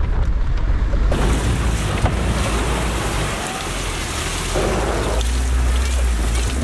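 Land Rover Defender's engine running as it ploughs through a river crossing, with water splashing and rushing around the vehicle, starting suddenly about a second in. It is the crossing that floods the cabin and soaks the electrics.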